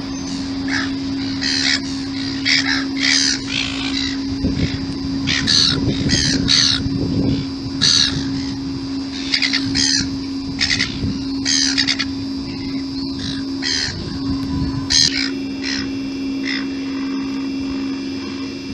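Gulls calling: a long run of short, harsh squawking calls, one every half second to a second, over a steady low hum.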